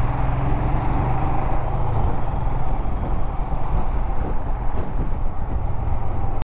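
Royal Enfield Himalayan's single-cylinder engine running at low speed in slow, heavy traffic, with other road vehicles around it. The sound cuts off abruptly right at the end.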